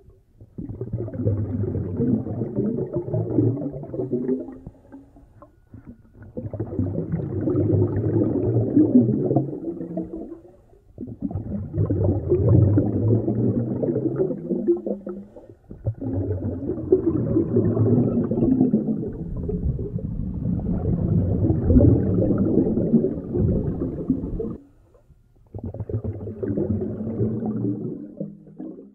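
Scuba exhalation bubbles from a diver's regulator, bubbling and gurgling muffled against an underwater camera housing. They come in about six breaths of several seconds each, with short quiet gaps for inhaling.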